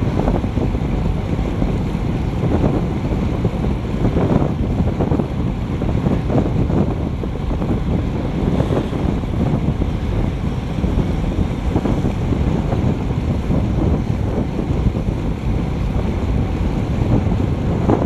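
Steady, loud wind buffeting on an action camera's microphone from riding a road bike at about 35 km/h.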